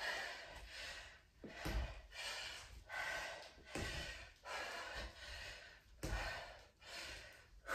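A woman's heavy, rhythmic breathing during a squat-to-kick cardio exercise, about one breath a second, with a couple of dull thumps of feet landing on a wooden floor.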